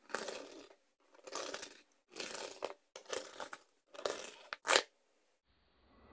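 Silver bullion rounds handled with a gloved hand on a cloth: five short scraping, clinking sounds about a second apart as coins are lifted from a stack and set down. The last one, near the end, is a brighter metallic clink.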